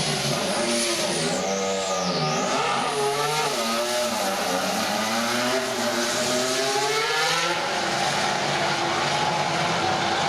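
2014 Force India Formula One car's Mercedes 1.6-litre turbocharged V6 hybrid power unit pulling out of the garage, its note dipping and rising in pitch several times at low speed. A high turbo whistle rises and falls over the first couple of seconds, and the engine note gives way to a steadier wash about seven seconds in.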